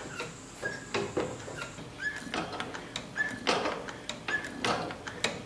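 Homemade mechanical throttle linkage worked through its travel by a foot pedal, pressed and released about once a second. Each stroke gives a short squeak and a few metal clicks from the pedal, rods and levers.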